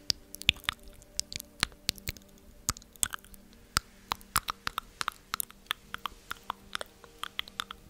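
Close-miked ASMR clicking and snapping, sharp and irregular at about three to four a second, that goes with the mimed plucking away of negative energy. A faint steady hum of several low tones lies underneath.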